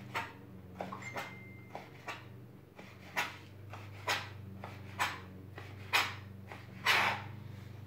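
Kitchen knife cutting raw bacon on a plastic cutting board. The first strokes are light taps, then about once a second there are firmer knocks of the blade on the board.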